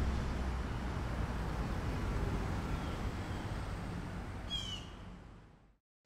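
Low, steady city traffic hum that fades out to silence, with one short bird chirp about four and a half seconds in.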